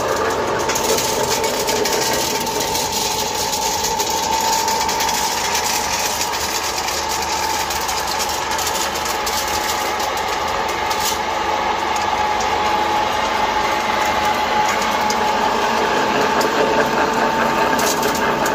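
Small electric feed pellet mill running steadily under load, pressing crushed dry straw mixed with corn into pellets, with an even mechanical drone and a steady whine.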